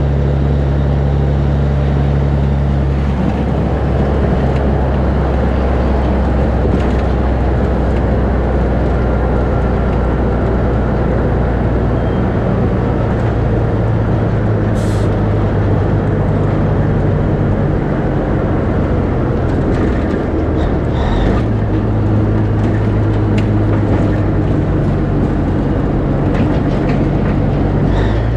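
Caterpillar diesel engine of a Peterbilt 362 cabover semi truck running at highway speed. It is a loud, steady drone whose pitch shifts several times.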